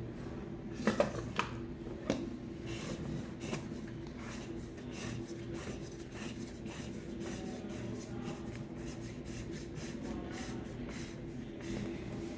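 Hands working the oil filter and housing of a DD13 diesel: a few light clinks about a second in, then ongoing rubbing, scraping and small knocks, over a steady low hum.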